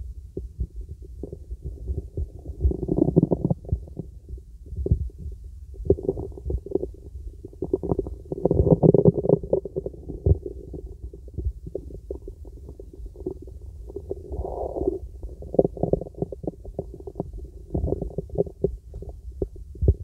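Bowel sounds from a person's stomach heard through a stethoscope: irregular gurgles that swell and fade over a low, muffled rumble, the longest and loudest about eight to nine and a half seconds in.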